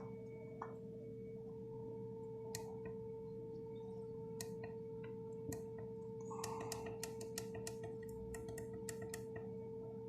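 A steady, faint electrical tone with a higher overtone, under sharp clicks: a few scattered ones early, then a quicker run of clicks, several a second, through the second half.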